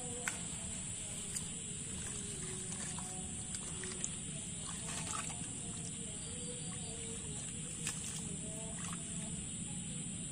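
Hands working in shallow muddy water among cut reeds, making light splashes and a few small clicks, over a steady high-pitched drone and faint wavering calls in the background.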